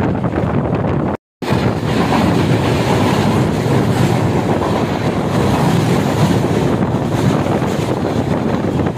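Passenger train running at speed, heard from on board: a steady rumble and rattle of wheels on the track. It breaks off for a moment about a second in.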